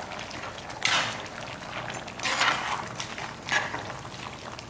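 A spatula stirring and scraping through a thick, wet chicken curry in a heavy pot, with a wet scrape about every second or so.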